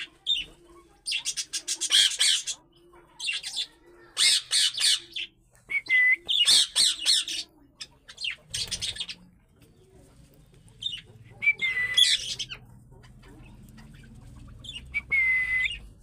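Budgerigar chattering in about seven short, raspy bursts of calls, a few of them with a brief held whistle.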